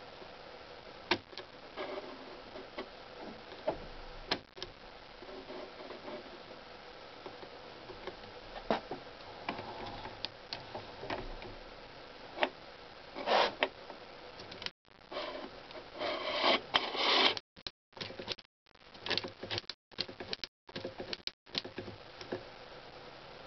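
Small, irregular mechanical clicks and rattles from an opened Shimano Alfine 11-speed internal gear hub being shifted through its gears, as the shift pawls and sleeve on the axle click into new positions. Past the middle the clicking becomes a busier clatter with scraping, cutting out abruptly several times.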